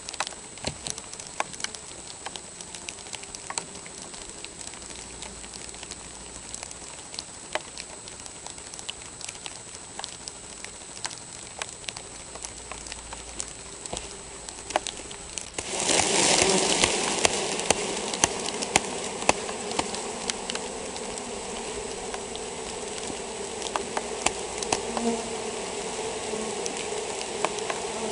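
Honeybees buzzing at a hive, with scattered light ticks. About halfway through, a frame of bees is knocked out in front of the hive entrance: a sudden rush of noise, then a louder steady buzz of many bees. The colony is being shaken onto a sheet to walk into a clean new hive, a transfer against European foulbrood.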